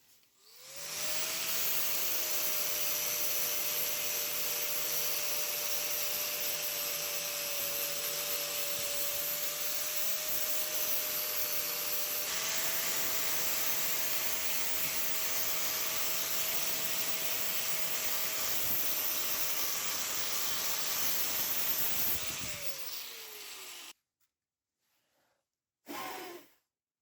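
Electric rotary power tool spinning up, running steadily at work for about twenty seconds, then spinning down with a falling whine.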